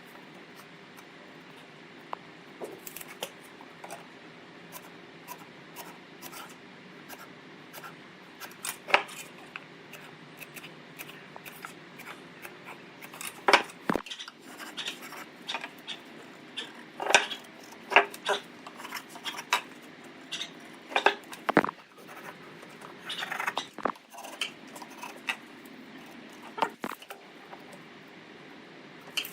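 Irregular sharp clicks and taps, some much louder than others, over a steady low hum.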